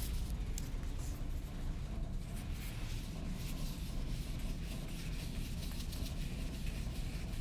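Hand rubbing across a whiteboard's surface at stubborn dry-erase marker residue: a scratchy rubbing that picks up about two seconds in, over a low rumble from handling the phone.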